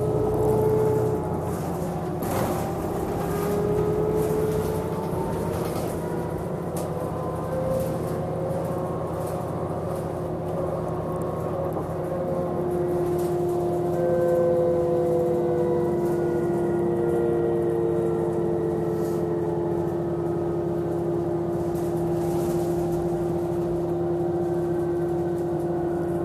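New Flyer DE40LF hybrid bus running under way: the Cummins ISL diesel gives a steady hum, and the electric whine of the Allison EP40 hybrid drive glides up and down in pitch with the bus's speed. A few brief knocks and rattles come through, the clearest about two seconds in.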